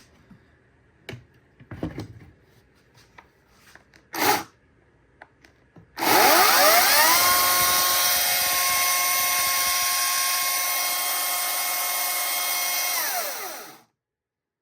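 Ryobi 40V battery chainsaw, freshly fitted with a 16-inch bar, running: after a few handling clicks, the motor whines up to speed about six seconds in, runs steadily for about seven seconds, then winds down and stops.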